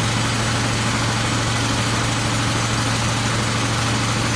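An engine on the service truck running steadily at idle: a constant low hum with an even hiss over it.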